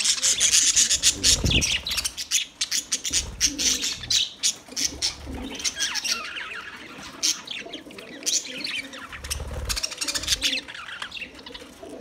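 A flock of budgerigars chirping and warbling, many quick, overlapping calls at once.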